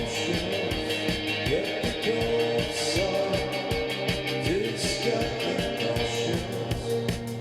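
Rock music with electric guitar and a fast steady drum beat, played back through an Akkord 201 stereo amplifier and picked up by a camera's microphone.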